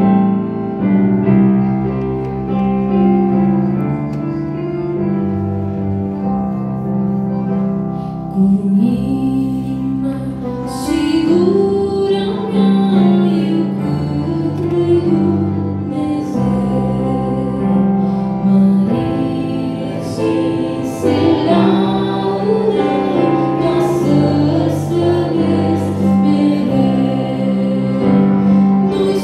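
Instrumental accompaniment playing held chords, then about eight seconds in a young woman begins singing an old Romanian hymn into a microphone over it.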